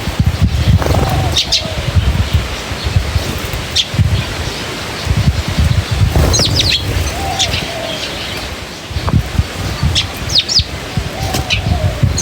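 Several birds chirping: short, high chirps come scattered throughout, and a lower, short falling call repeats three times, about a second in, midway and near the end. A dense low rumble runs underneath.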